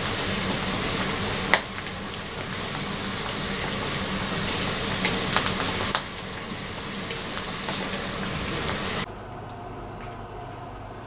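Samosas deep-frying in hot oil in a wok: a steady sizzle, with a few sharp clicks of the metal slotted spoon against the wok as they are turned. The sizzle cuts off suddenly about nine seconds in, leaving quieter room sound.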